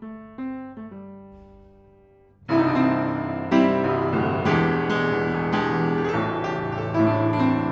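1988 Yamaha P112 upright piano being played: a few soft notes ring and fade, then about two and a half seconds in a loud, full passage of chords begins.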